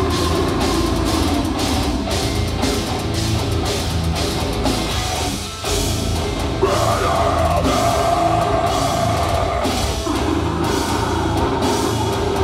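Deathcore band playing live, heard from the crowd: fast, heavy drumming under distorted guitars and bass. About halfway through the band stops for a moment, then comes back in on a new riff.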